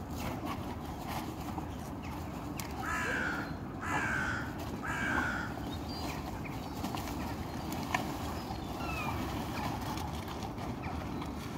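A crow cawing three times in quick succession, each caw falling in pitch.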